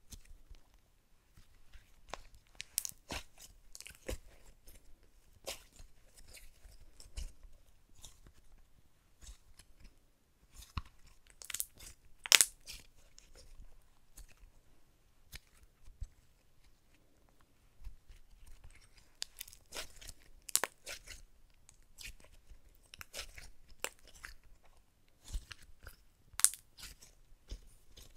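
Blue glitter slime being kneaded, stretched and pressed by hand, giving off irregular crackling clicks and pops, with the loudest pop about twelve seconds in.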